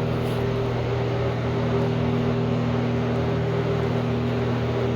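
A steady low mechanical hum with a few fixed tones and an even background noise.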